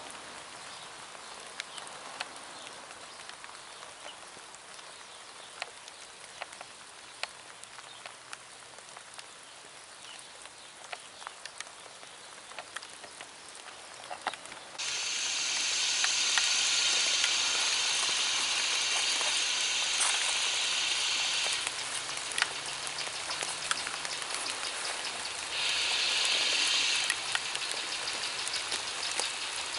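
Rain falling steadily with scattered drips. About halfway through, a much louder steady hiss of steam from a steam locomotive starts abruptly and runs for several seconds before cutting off. It hisses again briefly near the end, over the rain.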